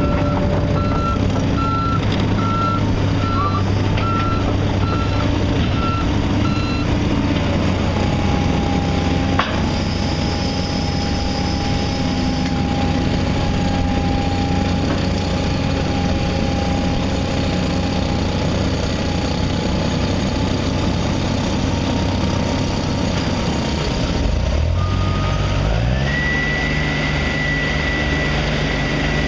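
Heavy diesel construction machine running with its reverse alarm beeping about twice a second; the beeping stops after about seven seconds. Near the end the engine revs up and holds at a higher speed.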